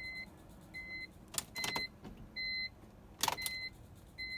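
A BMW E46 M3 that will not crank when the key is turned to start: a car warning chime beeps steadily about once a second, with two sharp clicks in between. This is a no-start from a flat battery.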